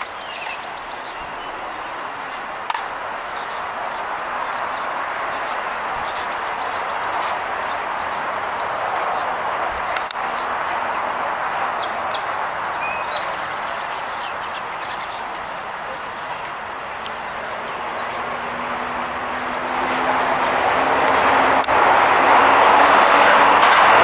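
Steady traffic noise that swells into a loud passing vehicle over the last few seconds, with a low engine tone rising under it. Through it a small bird chirps repeatedly, short high notes about once a second.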